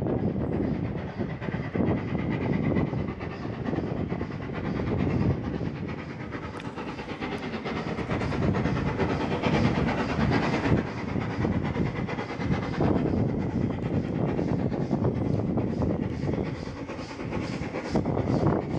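Steam locomotive No. 461, a 1922 Beyer, Peacock engine, approaching while hauling a train of carriages. The engine working and the train running on the rails make a continuous rumble, with a rhythmic beat coming through from about halfway.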